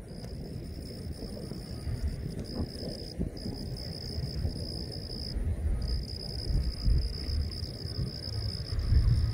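A steady, high insect trill, broken by a few short pauses, over a low, uneven rumble of wind on the microphone that grows louder near the end.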